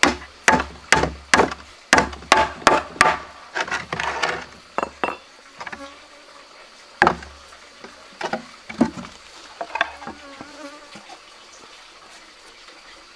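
Claw hammer driving nails into a wooden board, about two sharp strikes a second for the first four seconds, then a few scattered knocks as the wooden box is handled. A faint steady insect hum underneath.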